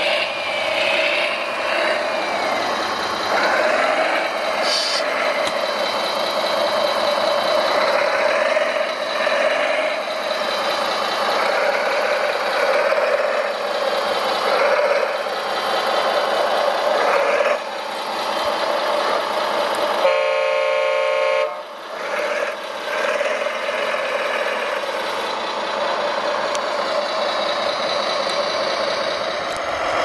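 Radio-controlled construction models working: a steady motor whine with smaller whines rising and falling as the wheel loader and dump truck move. About twenty seconds in, a horn sounds for a second or so.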